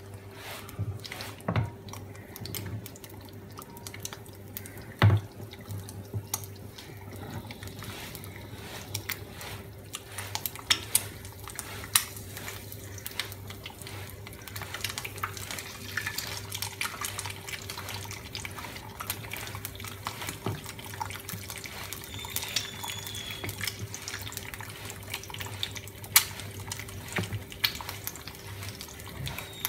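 Two eggs frying in hot oil in a nonstick pan: a steady sizzle broken by frequent crackles and sharp pops of spitting oil, over a low steady hum.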